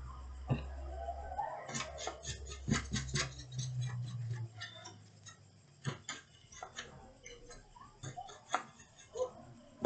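Light clicking and tapping of plastic and metal laptop parts and screws being handled during disassembly: a quick run of clicks about two seconds in, then scattered single clicks.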